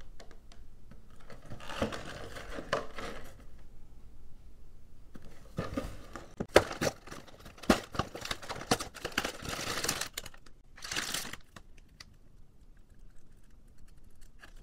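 Cardboard box of a LEGO set being handled and torn open at its end flap: crinkling, tearing and scraping with several sharp clicks, busiest in the middle. Quieter paper rustling near the end.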